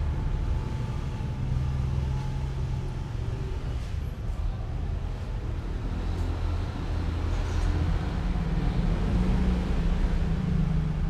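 A steady low rumble with a droning hum that shifts in pitch now and then.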